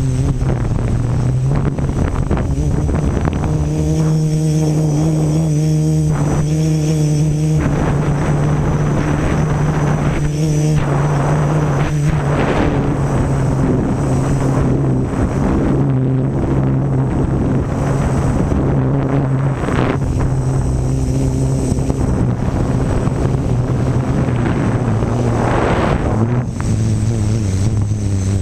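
Quadcopter's electric motors and propellers buzzing steadily, heard up close from a camera strapped to the frame. The pitch shifts up and down a little as the throttle changes.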